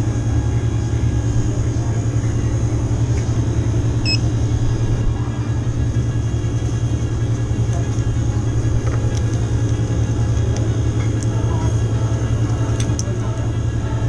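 Steady low mechanical hum of running machinery, with a few faint ticks.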